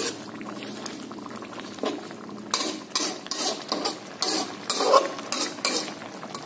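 Metal spatula stirring and scraping tilapia curry in coconut milk around an aluminium wok over medium heat. Softer at first, then a run of quick scrapes, about two or three a second, from about two and a half seconds in.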